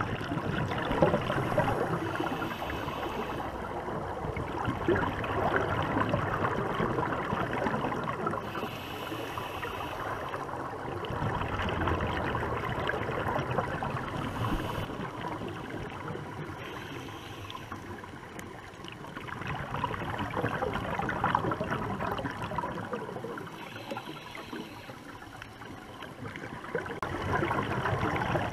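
Underwater recording of scuba regulator exhaust bubbles gurgling and crackling, swelling and fading every several seconds with the divers' breaths.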